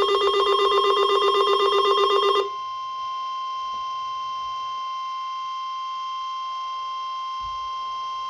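Emergency alert tones. For about the first two and a half seconds a loud, rapidly pulsing buzzy alert tone sounds. It cuts off abruptly into a single steady high tone of about 1 kHz, like the 1050 Hz weather-radio warning alarm that comes before a severe thunderstorm warning message.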